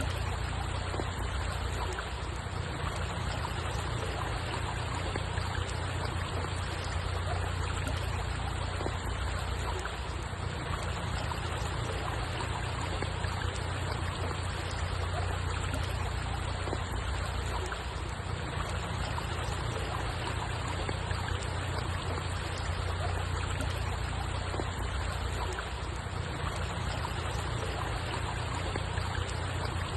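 Water flowing and trickling steadily, with no breaks or separate events, over a constant low rumble.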